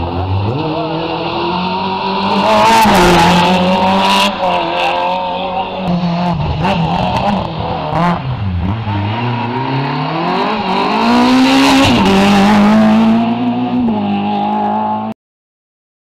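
Rally car engines revving hard, pitch climbing and dropping through gear changes as cars drive past at speed on a wet road, with a rush of high hiss twice as they come close. The sound cuts off abruptly near the end.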